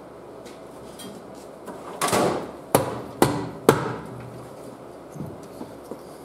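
A hammer tapping the crankshaft straightener on a lawnmower engine's crankshaft to push it down: three sharp strikes about half a second apart, each with a short ring. A brief clatter comes just before them.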